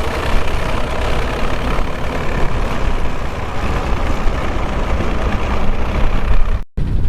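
John Deere 2140 tractor's three-cylinder diesel engine running steadily with a deep rumble; the sound drops out completely for a split second near the end.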